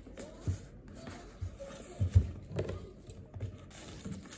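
A handful of light, irregular taps and knocks, the loudest a quick double knock about two seconds in.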